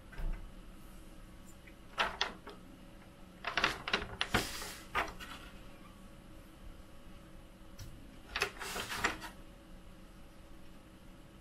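Hands rubbing and pressing across a magnetic sheet laid on a 3D printer's bed to push trapped air out from under it: scuffing, swishing strokes in three short bouts, about two, four and nine seconds in.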